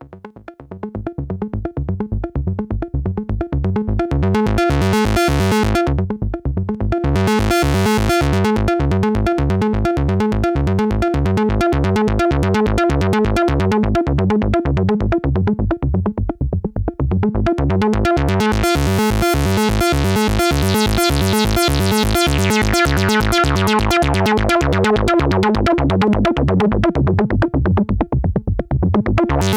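Eurorack modular synthesizer playing a fast sequenced low line through a Steve's MS-22 filter, an MS-20-style filter. The bright upper range opens briefly a few seconds in, then opens wide past the middle and closes again near the end, as the filter cutoff sweeps.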